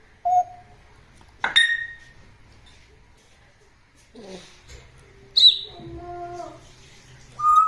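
Pet parrot giving a series of about six short whistles and calls at different pitches, some gliding, the loudest a sharp high squawk about five and a half seconds in.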